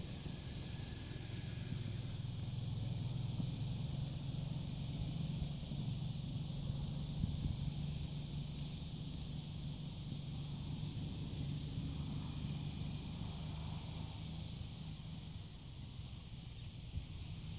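Steady outdoor background noise: a continuous low hum with an even hiss above it, and no distinct hoofbeats standing out.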